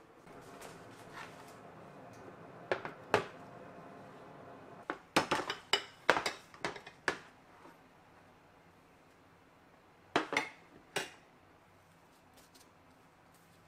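Food storage containers and dishes being set down and their lids handled on a kitchen counter: a scatter of clinks and knocks, thickest about five to seven seconds in and again around ten seconds.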